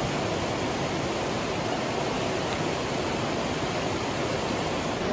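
Steady rush of a small waterfall pouring into a rock pool.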